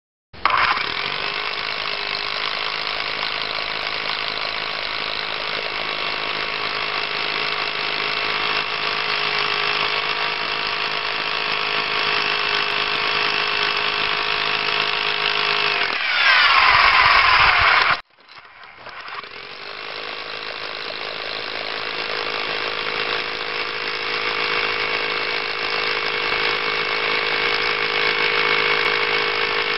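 Electric rotary hammer running steadily. About two-thirds of the way through it gets louder and harsher for a couple of seconds, then stops suddenly. Moments later it starts again, builds up and runs steadily on.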